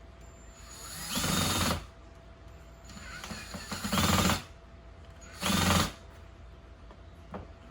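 Power drill driving screws into the roof sections in three short bursts, the motor spinning up and winding down each time.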